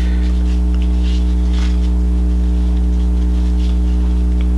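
Loud, steady electrical hum with a stack of even overtones, under faint, brief rustles of comic books being sorted by hand.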